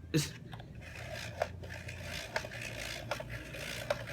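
Skip Dr manual disc repair system buffing a DVD as its hand crank is turned: a steady rasping scrape of the buffing wheel on the disc, with a light click about once a second and a knock near the start.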